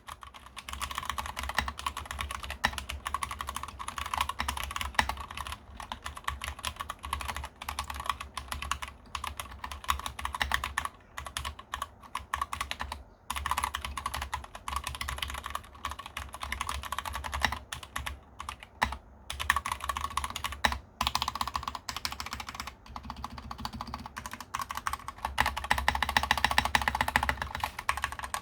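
Typing on a KEMOVE mechanical keyboard: fast, continuous key clicks with a few brief pauses, busiest and loudest near the end.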